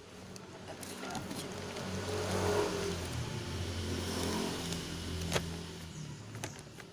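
A motor vehicle's engine passing by, building up from about a second in, loudest in the middle and fading away near the end.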